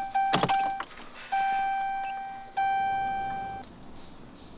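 An electronic chime sounding one ringing tone: a quick run of repeated dings that breaks off just under a second in, then two longer dings that each fade away. A brief clatter sounds about half a second in.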